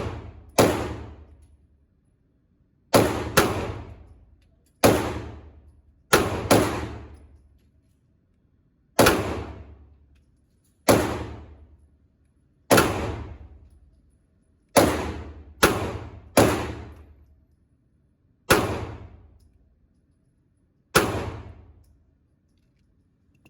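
Gunshots fired at a shooting range: about fourteen single shots, a few in quick pairs, each cracking sharply and then trailing off in a long echo.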